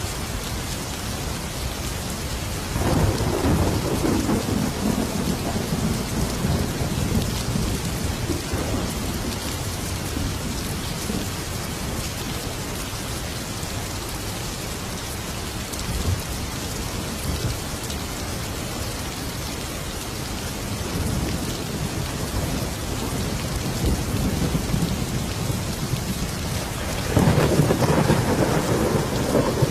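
Thunderstorm: steady heavy rain with rolling thunder, one rumble swelling about three seconds in and fading slowly, and another loud rumble near the end.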